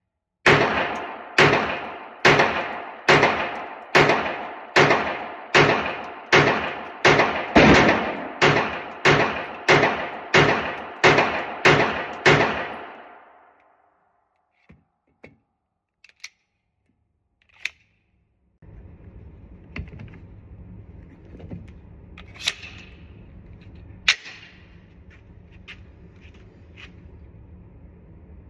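Glock 19X 9mm pistol fired in a steady string of about seventeen shots, a little under a second apart, each echoing in an indoor range. After the string come a few isolated clicks. Then a steady low rushing noise runs on with occasional sharp knocks.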